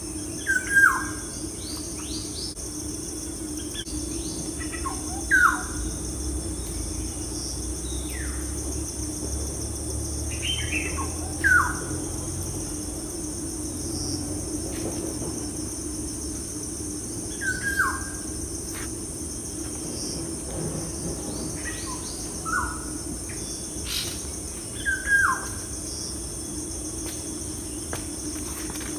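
Bird calls: short chirps that slide downward in pitch, repeated every few seconds, over a steady high-pitched insect drone like crickets.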